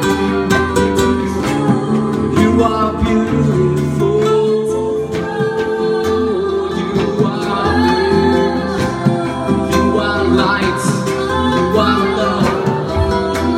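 Live acoustic guitar being played with a voice singing over it, and long held tones sounding underneath.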